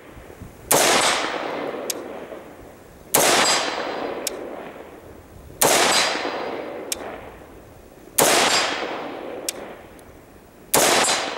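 Five single rifle shots from an AR-15 fitted with a 3D-printed Inconel muzzle brake, fired slowly about two and a half seconds apart, each followed by a long echo that fades away.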